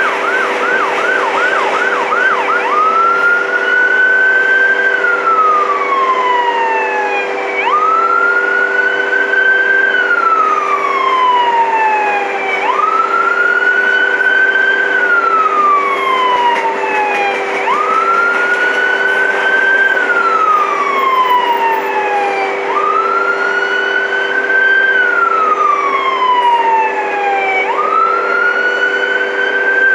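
A siren switches from a fast yelp to a slow wail about two and a half seconds in. Each wail rises for about two seconds and falls for about three, repeating every five seconds, over the steady hum and rumble of freight cars rolling past.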